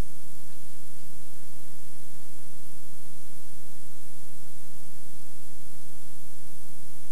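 Steady hiss with a low, constant hum and no distinct sound over it: the noise floor of an old VHS tape soundtrack.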